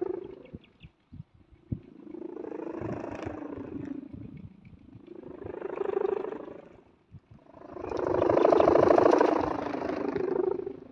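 A kite's 4.5-metre sendaren, a bamboo bow hummer with a taut ribbon, droning in the wind with a low buzzing hum. It swells and fades four times, loudest about eight to ten seconds in.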